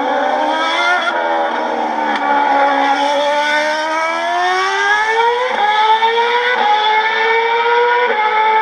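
Ferrari Formula 1 V8 engine accelerating hard through the gears, heard played back through a small speaker with no bass. The pitch climbs steadily and drops briefly at each upshift, about five and a half, six and a half and eight seconds in.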